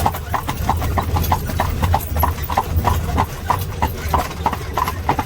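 Horse's hooves clip-clopping on the road as it trots pulling an Amish buggy, a steady rhythm of about four strikes a second over a low rumble.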